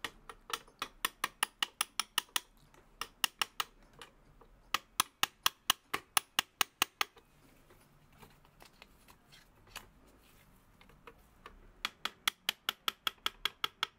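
Light hammer taps on a punch, driving a steel pin out of a frame pillar of a brass clock movement. The taps come in quick runs of about five strikes a second, with short pauses between runs and a few scattered single taps in the middle.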